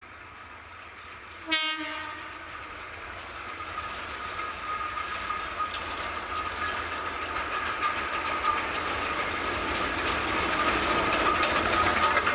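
A Tsugaru Railway diesel locomotive gives one short horn blast, then approaches: its running rumble and a steady high whine grow steadily louder.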